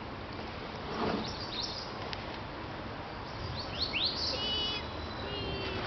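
Wild songbirds calling over a steady outdoor background hiss: a couple of short high chirps about one and a half seconds in, then a run of quick swooping notes and a short held whistle near the end.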